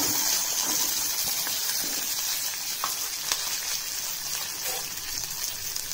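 Chopped small onions and curry leaves sizzling in hot oil in a kadai: a steady hiss with a few sharp pops.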